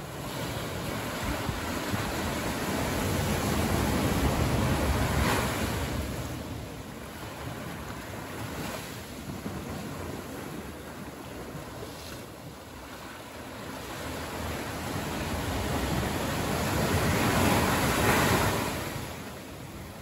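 Small waves breaking and washing up a sandy cove between rocks, a steady surf wash that swells twice, about four seconds in and again near the end, and eases in between.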